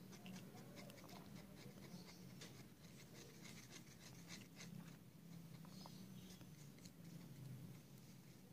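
Faint scratching and tapping of a thin stick stirring a dab of paint on a paper card, strongest in the first half, over a low steady hum.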